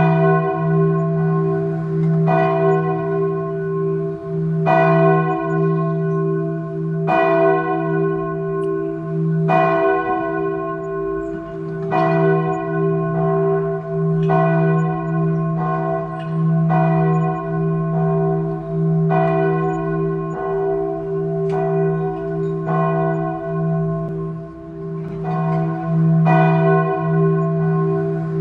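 Church tower bell tolling at an even, slow pace, about one stroke every two and a half seconds, roughly a dozen strokes, each ringing on into the next.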